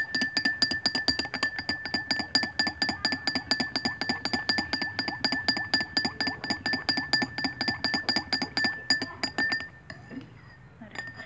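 A spoon stirring a powdered drink in a tall drinking glass, clinking quickly and evenly against the sides, about six clinks a second, while the glass rings. The stirring stops about ten seconds in.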